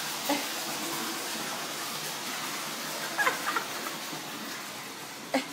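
Steady hissing noise that fades gradually, with a few faint brief sounds about three seconds in and a sharp click near the end.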